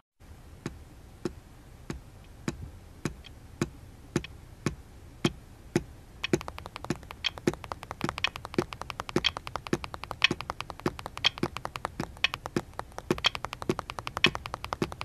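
Sharp rhythmic clicks in a steady pulse of just under two a second, the quiet opening of a pop track. About six seconds in, faster clicks fill in between the beats, three to four a second, with the beat clicks still louder.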